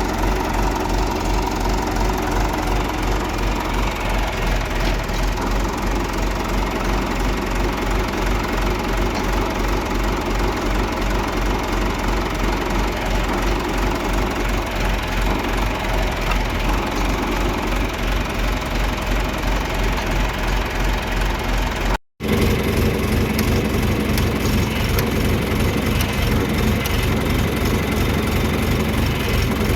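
John Deere 2355 tractor's diesel engine running steadily at idle with an even low throb. About two-thirds of the way through the sound cuts out for an instant and comes back a little heavier.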